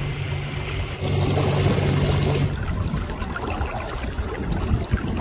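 Small motorboat under way: a steady low motor hum with water rushing along the hull. About halfway through, this gives way to water lapping and wind on the microphone.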